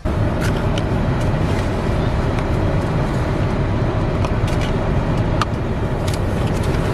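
Steady low rumble of car and traffic noise, heard from inside a parked car with the driver's window open. A few faint clicks and taps sound over it.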